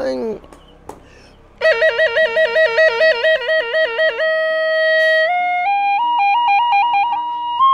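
A held sung note slides down and ends, and after a pause of about a second and a half a flute-like wind instrument comes in. It plays a fast trill between two notes, then climbs in steps with shorter trills to a held higher note.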